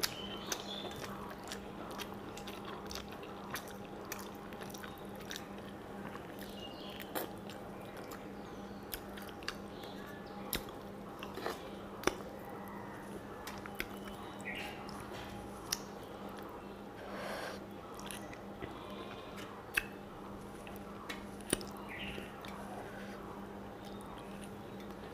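Close-miked chewing of rice and fish eaten by hand, with many short sharp clicks and mouth noises scattered through, over a steady low hum.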